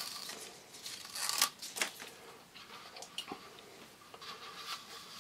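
Backing liner being peeled off double-sided tape on the bottom of a shower track: faint crackling and tearing, with a few light clicks.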